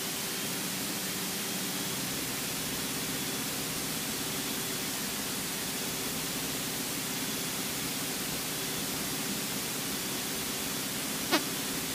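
Steady hiss of cockpit noise in a Cessna 172 in flight, with a faint steady hum from the engine underneath. A single short click sounds near the end.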